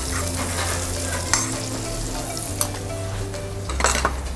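Butter and minced garlic sizzling steadily in a stainless steel frying pan over a gas burner, with a few light clicks.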